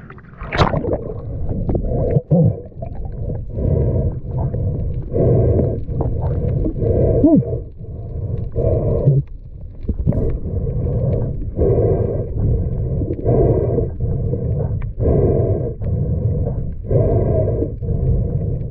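Muffled underwater sound picked up by a submerged action camera: a low rumble that swells in regular pulses about every second and a half, each carrying a hollow, droning tone.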